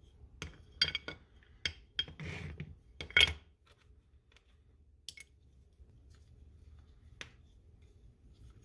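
Small hard objects handled on a workbench: a quick run of clinks and clicks with a short scrape in the first few seconds, then two single clicks later on.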